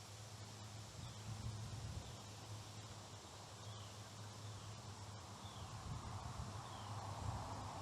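Faint outdoor ambience on the river: short, high, falling chirps repeat roughly once a second over a steady low hum.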